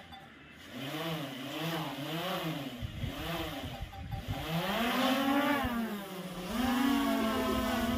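DJI Air 2S drone's propeller motors spinning up on the ground, their whine wavering up and down in pitch. About five seconds in the pitch rises as the drone lifts off, then it settles into a steady, louder hovering buzz.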